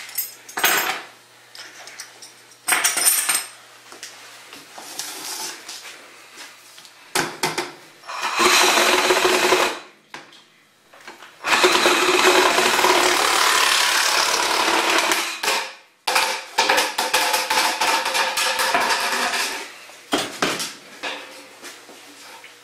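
A few short knocks and clatters of the plastic pipe being handled, then a saw cutting through 4-inch perforated PVC drain pipe, starting about eight seconds in and running in three long stretches of a few seconds each with short pauses between.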